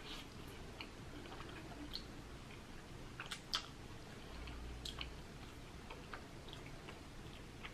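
Close-miked eating sounds of jjajangmyeon black bean noodles: soft, wet chewing and mouth smacks, with scattered short clicks. The sharpest click comes about three and a half seconds in.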